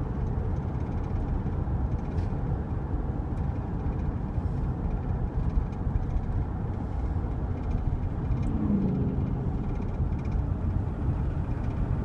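1999 GMC Suburban's 5.7 L Vortec V8 running steadily as the truck is driven, with road noise, and a brief rising tone about eight and a half seconds in. The engine's tick, loud when cold, is almost gone now that the engine has warmed up; the owner suspects a lifter but can't rule out a rod.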